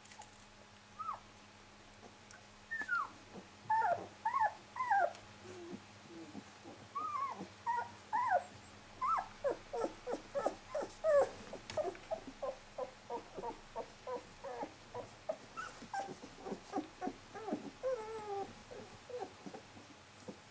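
Young puppy whimpering: short, high, falling squeaks, a few at first, then a quick run of two or three a second from about nine seconds in.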